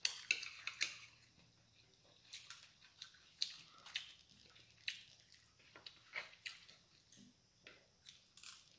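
Eating sounds at a meal: scattered light clicks and taps of utensils on plates and bowls, irregular, about a dozen in all.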